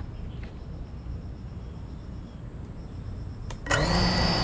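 A faint low rumble, then near the end the GEPRC CineLog 35 cinewhoop's brushless motors start up together and hold a steady idle whine, the sound of the quad being armed on the ground before takeoff.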